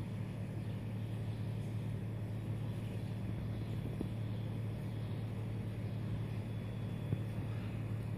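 A machine running with a steady low hum that does not change.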